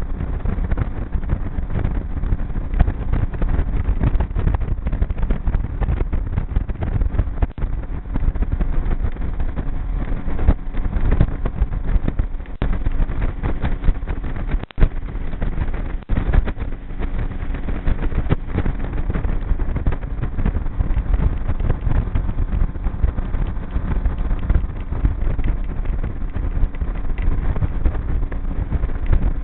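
Outboard motor of a G3 V167 boat running steadily under way, with wind rushing over the microphone. The drone is continuous apart from a brief dip about halfway through.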